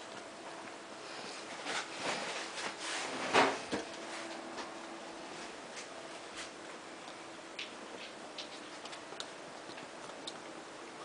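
Ferrets scrambling about on a leather sofa: scattered small clicks, with a louder stretch of scrabbling and rustling about two to four seconds in.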